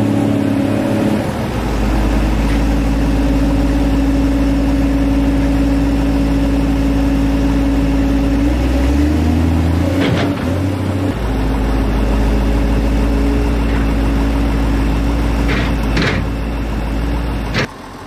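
Diesel engines of a New Holland wheel loader and a Case 2290 tractor running steadily while the loader dumps forage into a vertical feed mixer wagon; the engine note shifts about halfway through. A few sharp knocks come late on.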